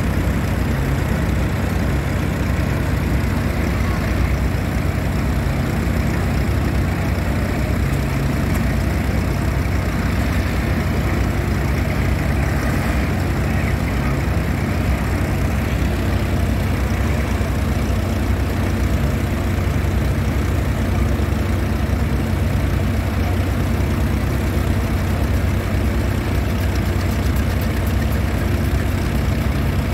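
An engine idling steadily, with no change in speed or load.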